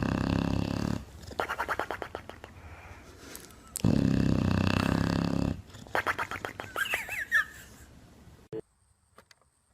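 An animal calling: two long, low-pitched calls of about two seconds each, with quicker rattling sounds between them, then the sound cuts off near the end.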